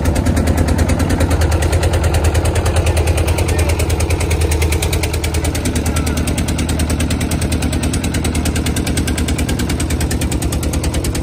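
Single-cylinder stationary diesel engine driving a wooden river boat, running steadily with a rapid, even beat.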